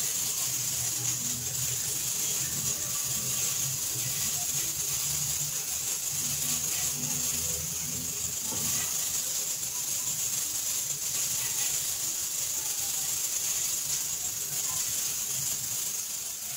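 Steady high-pitched hiss with a faint low hum underneath, unchanging throughout.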